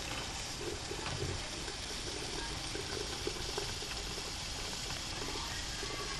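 Wilesco D375 live-steam model running under steam: a steady hiss from the boiler and engine, with bubbling and soft irregular puffs.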